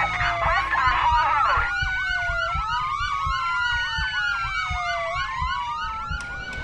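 Police siren: a slow rising-and-falling wail overlapped with a fast yelp.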